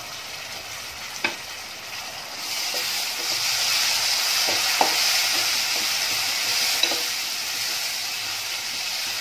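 Tomato paste and fried onions sizzling in hot oil in a metal pot while being stirred with a steel spoon. The sizzle grows louder a couple of seconds in, and the spoon clicks against the pot a few times.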